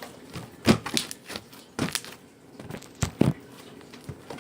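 Fluffy borax slime made with shaving foam being squished and kneaded by hand, giving a string of sharp pops and crackles. The loudest comes about three-quarters of a second in, and a close pair follows just after three seconds.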